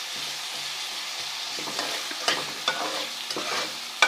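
Chopped onions and ginger-garlic paste sizzling in oil while a spoon stirs them in the pan. The spoon scrapes and knocks against the pan several times in the second half.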